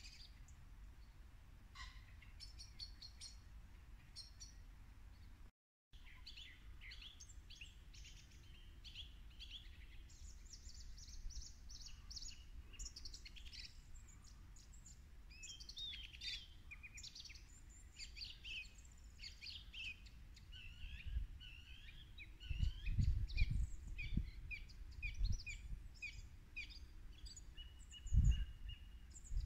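Several woodland birds singing and calling at dusk, a dense run of short chirps and twittering phrases, over a steady low rumble. From about two-thirds of the way in, irregular low thuds come in and are the loudest sound, and the sound cuts out for a moment about six seconds in.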